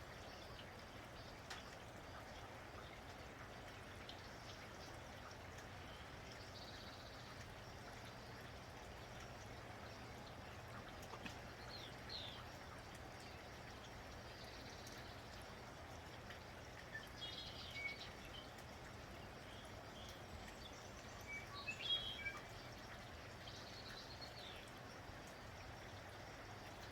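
Faint, steady patter of rain, with birds chirping now and then over it: short scattered calls, the loudest cluster about three-quarters of the way through.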